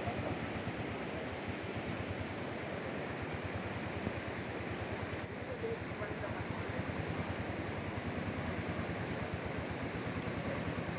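Auto-rickshaw engine running steadily with a fast, even putter while the three-wheeler is worked out of deep mud, under a constant rushing noise.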